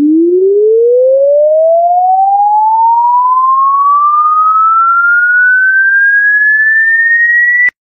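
A single pure electronic tone gliding slowly and smoothly upward from a deep hum to a high whistle-like pitch, then cutting off abruptly near the end.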